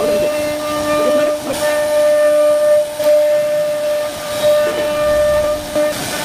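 CNC router spindle running with a steady high whine and a hiss, its bit cutting into a wooden door panel.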